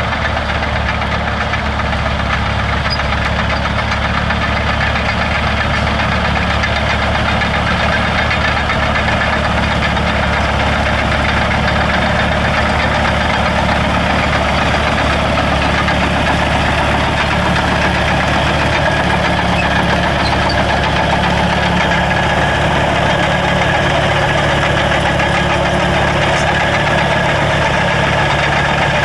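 Crawler bulldozer's diesel engine running steadily as the dozer drives across a field of dry grass.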